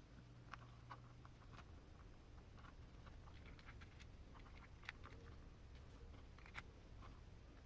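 Near silence with faint, irregular light clicks and taps of small transmission parts (gears, shafts, pins and bearings) being handled and fitted together.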